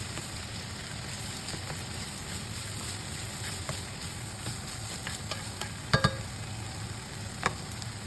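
Ground pork sizzling as it fries in a pan while being stirred, with a few sharp knocks of the utensil against the pan, the loudest about six seconds in.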